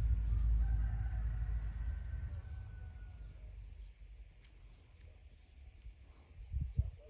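Faint rooster crowing: one long call that falls slightly in pitch, about one to three seconds in, over a low rumble of wind on the microphone that fades away. There are two short low thumps near the end.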